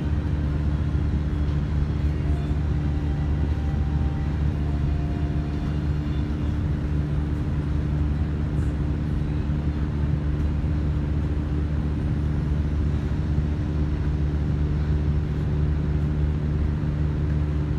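A steady low hum of constant pitch and level, like a running machine or appliance.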